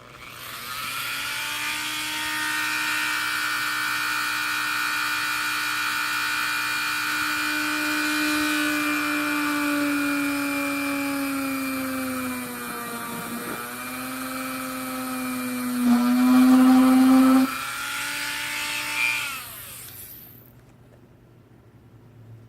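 Electric drill running steadily while drilling through leather and the plastic shell of a welding helmet. The motor pitch sags twice under load and it is loudest for a moment, then it winds down and stops near the end.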